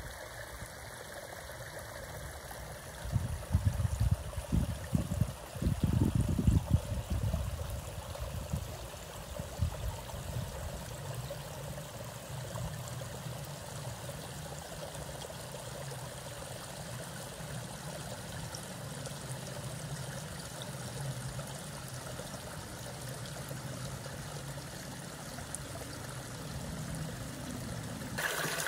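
Small woodland stream running steadily. Low rumbling buffets on the microphone come and go between about three and ten seconds in.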